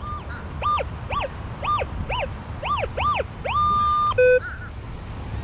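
Metal-detecting pinpointer chirping over a buried target: about seven short electronic tones, each rising and falling in pitch as the probe sweeps across the target. They end in a steady held tone of about a second where it sits right on the target, then a short lower beep.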